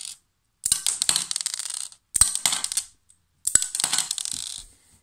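LEGO Technic gatling gun firing single shots: three sharp clicks about a second and a half apart, each followed by about a second of clattering as small plastic LEGO pieces bounce and scatter across a wooden floor.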